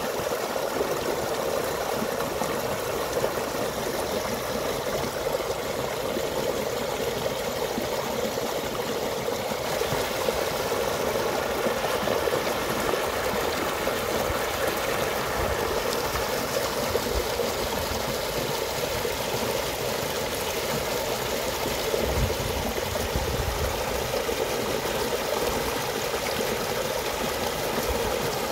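Shallow muddy stream rushing steadily over small drops in an earth bank.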